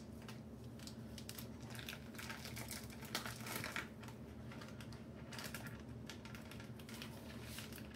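Plastic wrapper of a one-pound maple sausage chub crinkling and crackling in irregular bursts as it is peeled off the raw meat by hand, over a steady low hum.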